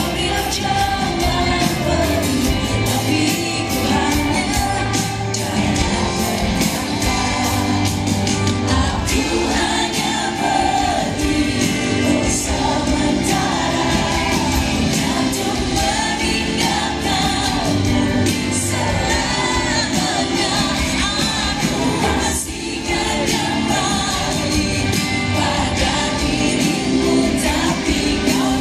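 Live pop band playing at full volume with female lead vocals sung into handheld microphones, heard over a large concert sound system; the music dips briefly about three-quarters of the way through.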